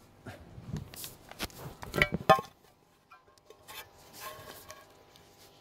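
Small plastic toy pieces handled on a table: scattered clicks and rubbing, with two sharp knocks about two seconds in.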